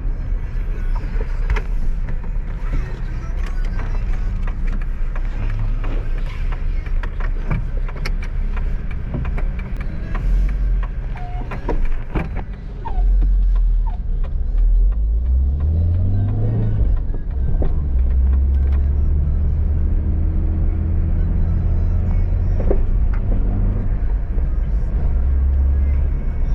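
Suzuki APV van's engine and road noise heard from inside the cabin while driving, with the engine note rising as it accelerates about 15 seconds in, then holding steady. The engine runs without the misfire shake it had, which the mechanic says is now gone.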